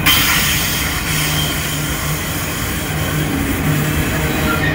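A train running past: a steady noise with a low engine hum that comes and goes.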